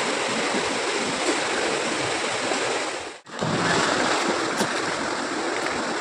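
Steady rushing of a mountain stream's white water pouring over rocks into a pool. The sound cuts out briefly just past three seconds in, then resumes.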